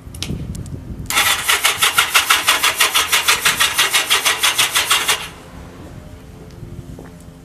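Kawasaki KZ750 inline-four being spun on its electric starter for about four seconds, a fast, even chugging of compression strokes that never catches and then cuts off. The engine cannot fire because its ignition points are missing.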